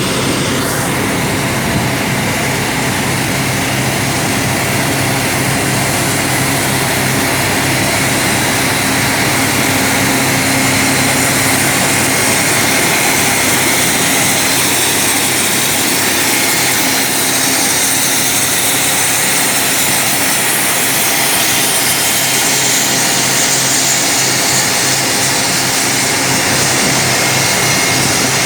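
Atlas Copco RD20 III drill rig running steadily: a constant engine drone with a loud, even hiss over it.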